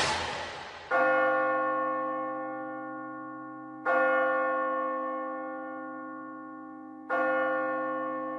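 A large bell tolling three times, about three seconds apart, each strike ringing on and slowly fading. A loud rushing noise dies away in the first second before the first toll.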